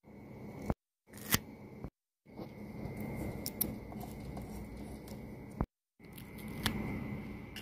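Paper stickers being peeled off a sticker sheet with metal tweezers and pressed onto a clear plastic keychain blank: crackly peeling and rustling with a few sharp clicks. It is broken by three brief gaps of dead silence.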